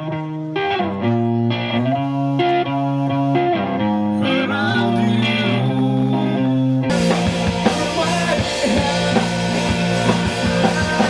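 Rock music: guitar-led chords changing about every half second, then, after about seven seconds, an abrupt cut to a live rock band with drums, guitars and crowd noise.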